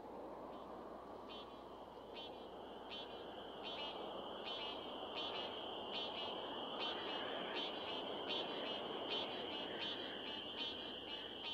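An evening chorus of frogs: a steady high-pitched chorus, with short trilled calls that come about once a second at first and more often from about halfway through, over a soft background hiss.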